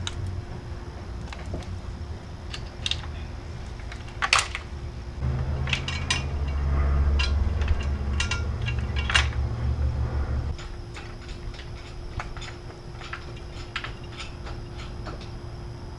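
Hand tools working on metal: scattered clinks and clanks of a wrench and socket on bolts. A low hum runs for about five seconds in the middle.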